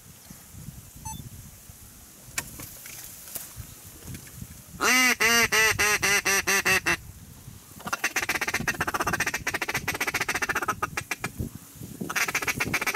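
Duck call blown in a run of about ten loud quacks, then a long fast chattering feed call, and a short burst of chatter near the end.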